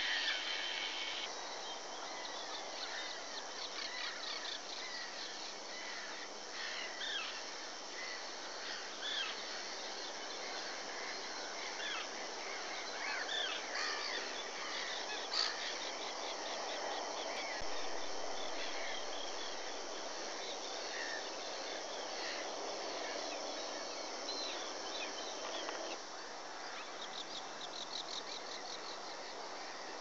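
Common terns calling at their nesting colony: many short, high calls over a steady hiss, with a quick run of repeated calls near the end.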